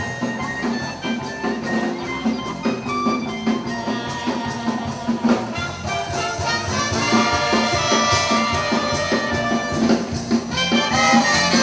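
Live dance band music: saxophone and brass playing a melody over a quick, steady percussion beat, growing louder about halfway through.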